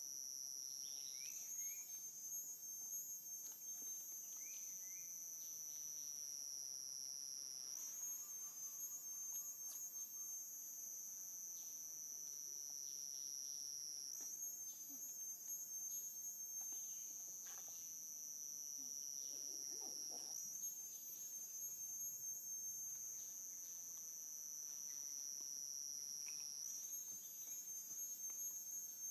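Cicadas buzzing steadily at a high pitch. The buzz jumps up in pitch about every six seconds and then slowly sinks again.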